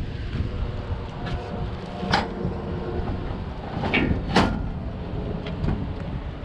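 A steel security door being handled: two sharp metallic knocks about two seconds apart and a few lighter clicks, over a steady low rumble.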